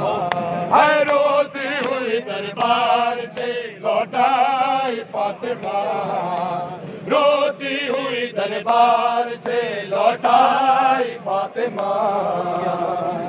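Men chanting an Urdu nauha, a Shia mourning lament, together in phrases, with wavering held notes.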